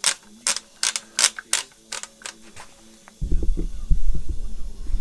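A quick, uneven run of about ten sharp clicks over the first two and a half seconds. About three seconds in they give way to loud, low rumbling and bumping handling noise as the camera is grabbed and moved, over a faint steady hum.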